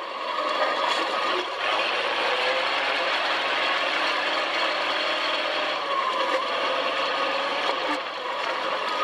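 Dune buggy engine running as the buggy drives across sand dunes, its pitch wavering slightly with the throttle. The engine eases off briefly near the start and again near the end.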